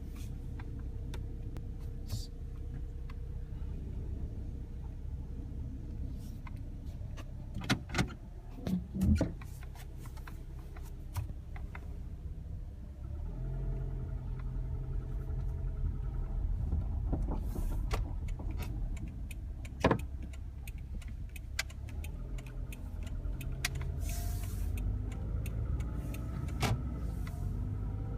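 2010 Toyota Camry engine running, with valvetrain noise that the owner takes for valve or lifter noise. There are a few sharp knocks along the way, and about halfway through it gets louder and holds a steadier note.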